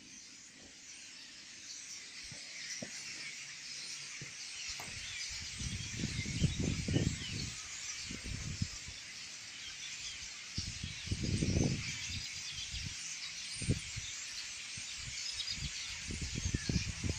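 A large flock of common starlings chattering all at once, a dense continuous din that grows louder over the first few seconds. Bursts of low rumble come in about six seconds in, around eleven seconds, and again near the end.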